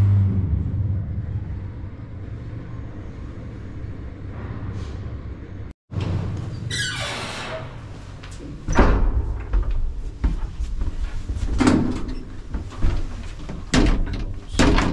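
Low, steady hum of the lift machinery for the first half. Then a falling screech and several knocks and bangs as the cabin's doors are pushed open and shut.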